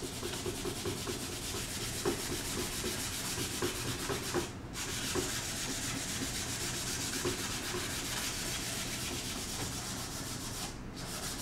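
Sandpaper rubbed by hand over a finished-plywood clock housing: steady rubbing, with two brief pauses, about four and a half seconds in and near the end.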